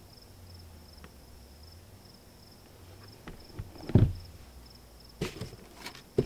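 A hiking shoe set down on a table with a thump about four seconds in, followed by a few short knocks and clicks near the end as a cardboard shoe box is handled. An insect chirps in steady pulses in the background.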